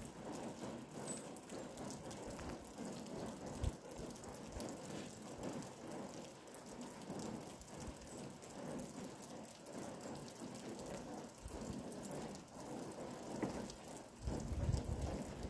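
Steady patter of rain, made of many fine ticks, with a low rumble near the end.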